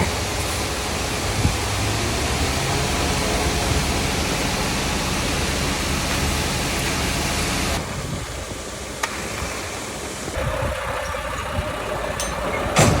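An engine running under a steady rushing noise that eases off about eight seconds in, with a steady hum joining a little later and a couple of sharp clicks near the end.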